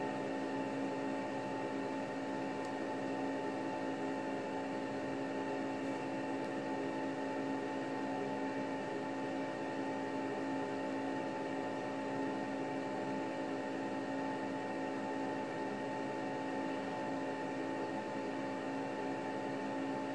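Steady background hum: several unchanging tones over an even hiss, from a running machine or appliance in the room.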